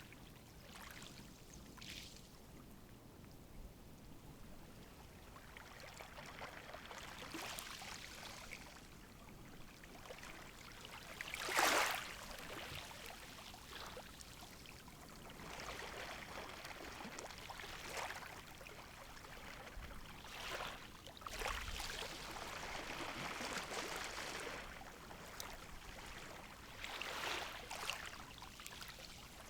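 Small, calm sea waves washing ashore, each one a soft swell of water noise that rises and falls every few seconds. The biggest breaks about twelve seconds in.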